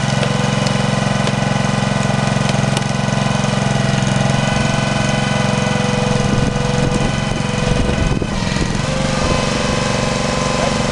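The small gasoline engine of a 5.5 hp Huskee 27-ton log splitter running steadily at constant speed. Around six to eight seconds in the sound turns rougher, with a few short knocks.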